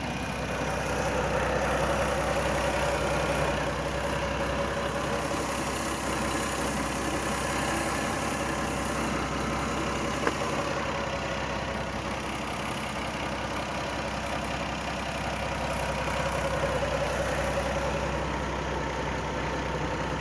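Toyota 2JZ-GTE 3.0-litre turbocharged straight-six idling steadily, heard at close range from the open engine bay. A single short click about ten seconds in.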